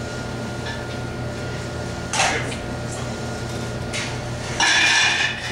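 Kitchen cookware being handled at a counter: a short clatter about two seconds in and a louder, longer clatter near the end, over a steady room hum.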